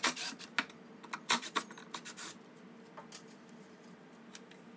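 Handling noise as a cordless drill and a drilled pine 2x4 are worked on a CNC router bed: sharp clicks, knocks and short scrapes, bunched in the first two and a half seconds and then sparse, over a steady low hum.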